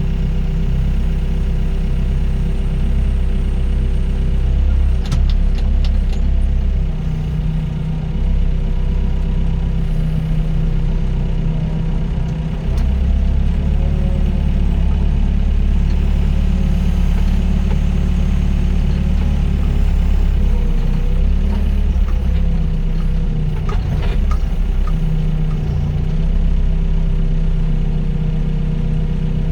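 Doosan DX55 mini excavator's diesel engine running steadily while its hydraulics work, the low drone swelling and easing every few seconds as the load changes. A few short sharp clanks come about five seconds in and again near twenty-four seconds.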